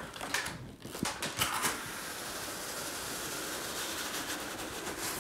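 Cardboard handling: a few light knocks and rustles, then from about two seconds in a steady scraping hiss as the cut-open outer shipping carton slides up off the inner carton.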